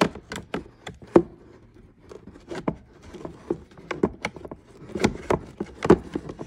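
A steel chisel pries apart two plastic motorcycle fairing parts that are bonded with foam double-sided tape. It makes irregular clicks, taps and creaks of hard plastic as the blade works in and the parts flex.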